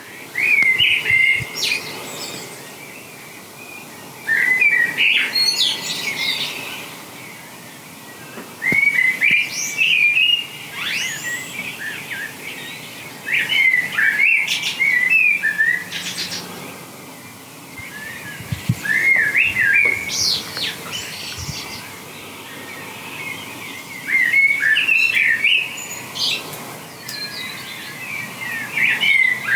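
A songbird singing short, chirping, warbling phrases, one every four to five seconds.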